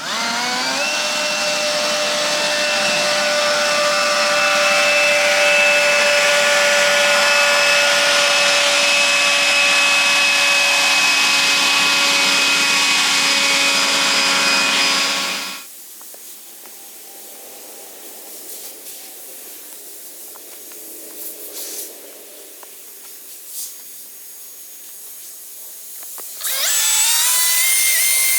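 Electric power tool motor spinning up to a steady high whine, running about fifteen seconds and shutting off. It starts again and winds up near the end.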